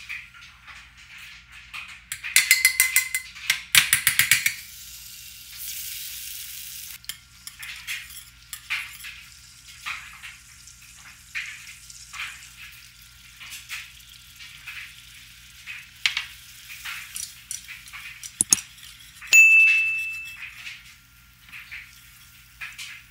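Metal wire whisk stirring and scraping in a stainless steel saucepan as butter and flour are worked into a roux, with light sizzling of the melted butter. A fast rattle of taps comes a few seconds in, and the whisk clinks on the pan with one clear metallic ring about two-thirds through.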